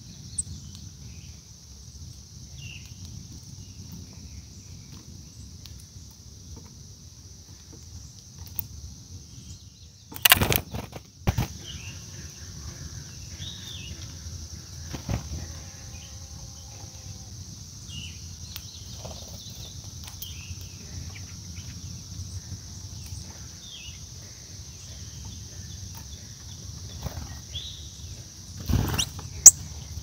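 Steady high-pitched insect drone with a few short, faint bird chirps. Loud brief fluttering thumps come about ten seconds in and again near the end: wingbeats of an American goldfinch flying onto the seed-covered stump.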